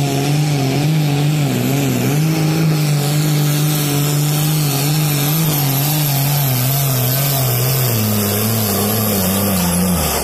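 Turbo-diesel engine of a red International pulling tractor running flat out under the load of the sled, its note wavering up and down. About eight seconds in the pitch drops as the engine is pulled down, and it falls away near the end as the pull stops.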